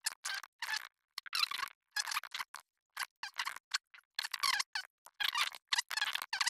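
Typing on a computer keyboard: irregular runs of short key clicks as text is entered.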